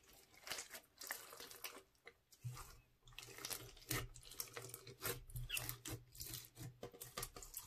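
Hands squishing and pressing clear sequin-and-bead slime into foam-bead slime, making irregular wet squelches and small crackles. A low hum joins about two and a half seconds in.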